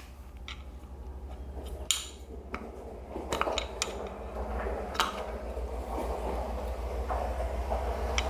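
Small hand tool clicking and scraping against a plastic-and-metal lamp fixture as a glued-on part is worked loose: scattered sharp clicks and taps with rustling handling noise, over a steady low hum.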